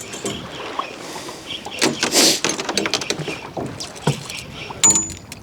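Sea water slapping and lapping against a small boat's hull, with a few sharp knocks and a louder noisy wash about two seconds in.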